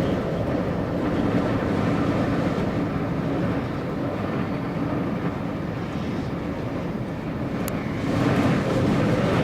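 Strong wind buffeting the microphone in a steady rushing rumble that swells with a gust near the end.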